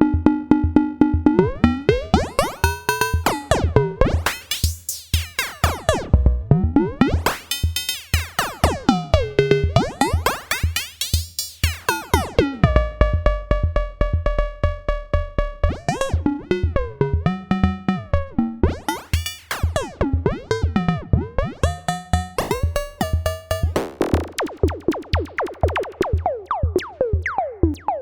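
Eurorack modular synthesizer patch voiced through an ST Modular Boba Fett module: a fast, steady electronic pulse with a low thump. Over it, pitched synth tones sweep and glide, mostly downward, and change every second or two.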